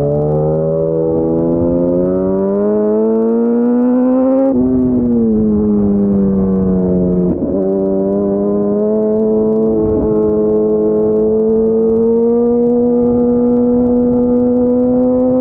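Yamaha FZ1's inline-four engine heard from the rider's helmet, pitch rising under throttle for about four seconds, then falling as the throttle eases. A brief dip comes about seven seconds in, and the engine then pulls on steadily with slowly rising pitch.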